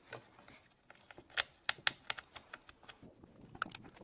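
A few scattered light clicks and taps, about half a dozen over four seconds, from hands handling the plastic housing and starter parts of a chainsaw.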